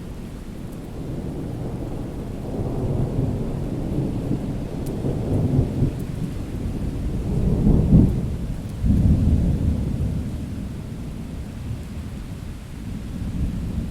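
Thunderstorm: deep rolling thunder over steady rain, swelling to its loudest peal about eight seconds in, with a fresh crack of thunder following about a second later.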